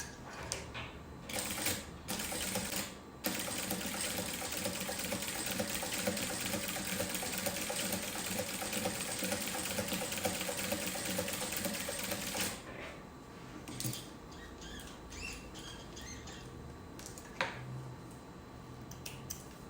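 Industrial sewing machine fitted with a zigzag attachment, sewing a zigzag stitch at stitch length 5: a few clicks, then the machine runs steadily for about nine seconds and stops. Scattered light clicks follow.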